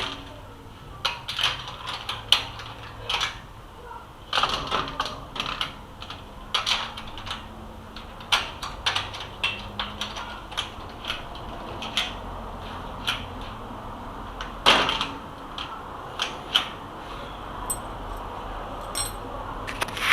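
Irregular metallic clicks and knocks from a mortise lock being worked on a steel grill door, several a second at times, with a louder knock about 15 seconds in.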